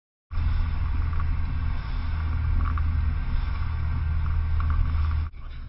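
Rigid inflatable boat's motor running under way, a steady low rumble mixed with water and wind noise. The sound drops abruptly in level about five seconds in.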